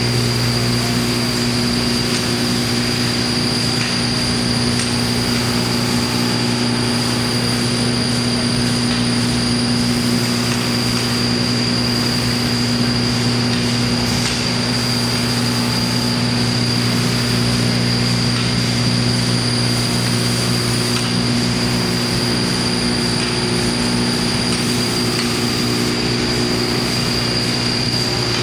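Large vibratory table feeder running: a steady hum from the vibratory drive under a dense, continuous rattle of metal cylinders jostling and recirculating across the vibrating deck, with a steady high-pitched tone above it.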